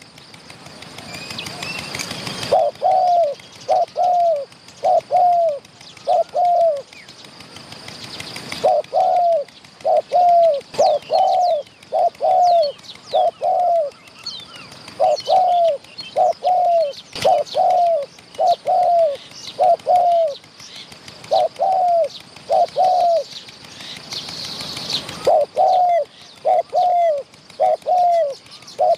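Spotted doves cooing, short falling coo notes in phrases of three to five, repeated over and over. Faint small-bird chirps and a few short bursts of hissing noise are behind them.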